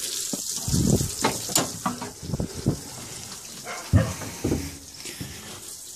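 Water running steadily in the background, a constant hiss, with several dull thumps and knocks, the sharpest about four seconds in.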